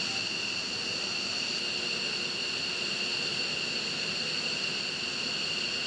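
Steady high-pitched whine and hiss of a running jet turbine, two high tones held level throughout.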